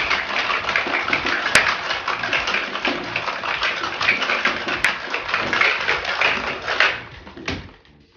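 Ice rattling hard inside a cocktail shaker being shaken vigorously, a dense, continuous rattle that stops about seven seconds in, followed by a single sharp knock.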